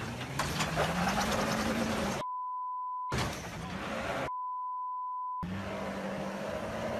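Two censor bleeps, each a steady high beep lasting about a second, that blank out all other sound, about two seconds in and again about four seconds in. Background noise with a low hum runs between and around them.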